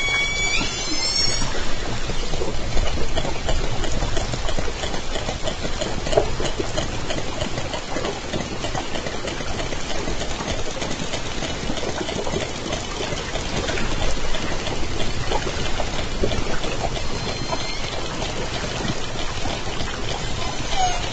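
Underwater hydrophone audio of southern resident killer whales (J Pod): pulsed calls in the first second and a half, then a steady underwater hiss with crackling clicks. A faint call comes about 17 seconds in and another short one near the end.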